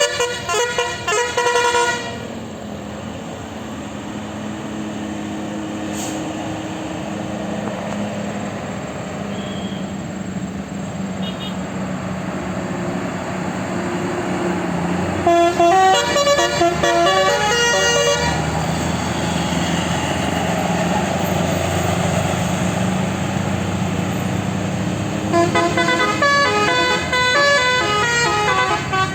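Tour bus telolet horn of the basuri type playing quick, stepping multi-note tunes, three times: at the start, about halfway through, and again near the end. Between the tunes a bus engine runs with road noise.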